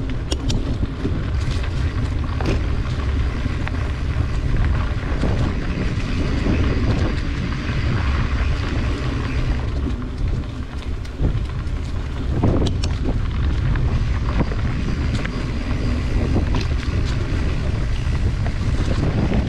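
Wind buffeting the microphone of a camera carried on a moving bike, a steady low rumble, with tyres running over a dirt trail and scattered clicks and rattles from the bike and the trail.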